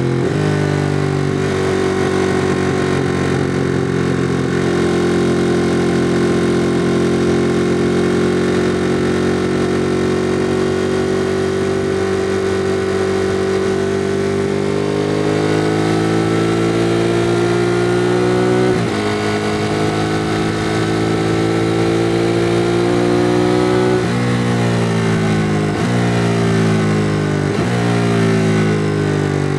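2016 Ducati Monster 821's 821 cc L-twin on its stock exhaust, heard on the move. It cruises at a steady pitch for about the first half, then accelerates: the note climbs and drops suddenly with each of several upshifts in the second half.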